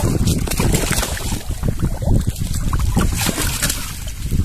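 Irregular splashing of a hooked fish thrashing at the water's surface, with wind rumbling on the microphone.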